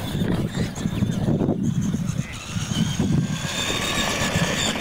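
Radio-controlled monster truck driving, its electric motor and gears giving a steady high whine that sets in about a second and a half in, over a low rumble.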